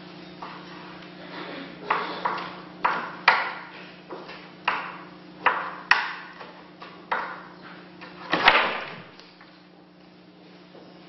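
Knife chopping on a cutting board: about a dozen sharp, uneven knocks, with the loudest one about eight seconds in, over a steady low hum.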